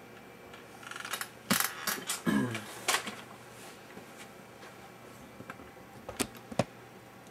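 Handling noises on a workbench: a cluster of sharp clicks and knocks with a short creak falling in pitch, then two more sharp clicks near the end.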